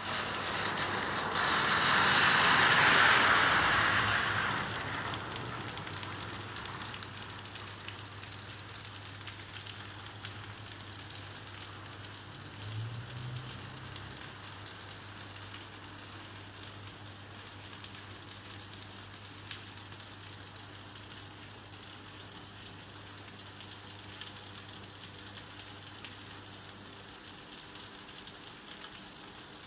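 Steady rain hiss, louder and fuller for a few seconds near the start and then even, with a faint low hum underneath that stops near the end.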